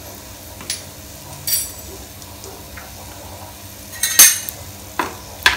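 Metal kitchen utensils clinking against a pan and dishes: several sharp clinks with a brief ring, the loudest about four seconds in.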